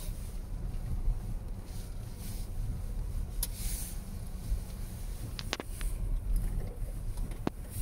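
A low, steady rumble inside the cabin of a SsangYong XLV driving slowly over a rough dirt track, with a few short clicks and knocks from the car body, a cluster about halfway through and one near the end.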